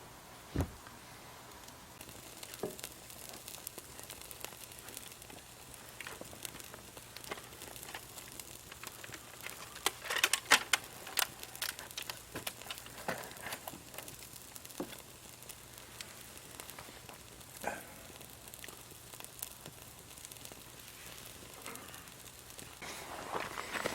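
Wood fire crackling, with scattered sharp pops and a denser burst of crackles about ten seconds in.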